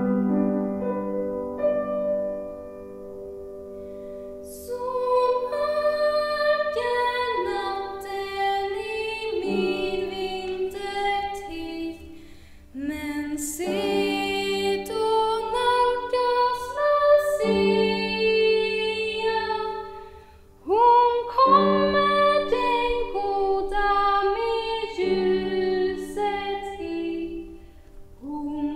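A female voice singing a slow Lucia song in long phrases with brief pauses between them, over sustained accompaniment, after a few seconds of lower instrumental notes at the start.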